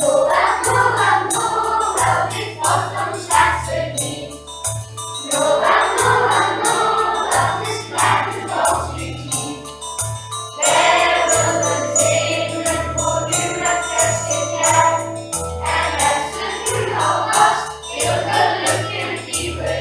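Children's choir singing a song with musical accompaniment: a bass line and a steady jingle-bell beat.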